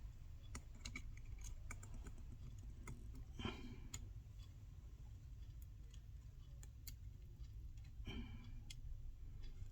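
Faint small clicks and taps of small repair tools on the screws and metal internals of an opened iPhone 12 Pro Max, with two slightly louder knocks about three and a half and eight seconds in, over a low steady hum.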